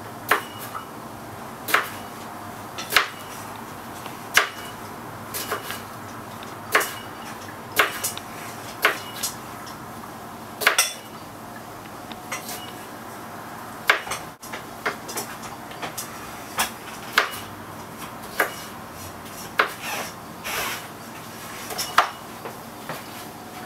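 Knife knocking on a chopping board as plums are cut up and deseeded: sharp, irregular knocks about one every second or so.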